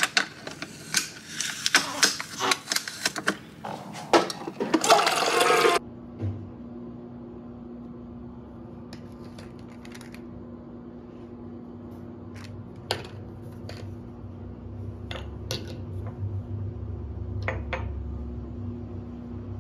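Crackling and rustling of a protective plastic film being peeled off a new Nespresso Vertuo Next coffee machine, with sharp clicks, for about six seconds. After that comes a steady low hum with a few light clicks of small cosmetic items being handled on a counter.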